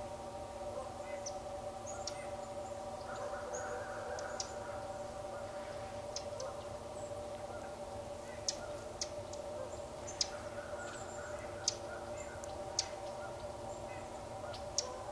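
A flock of geese honking in a continuous distant chorus, with a few short sharp high clicks in the second half.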